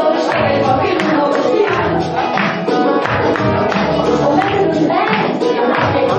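A woman singing live into a handheld microphone over amplified music with a steady beat and tambourine-like percussion.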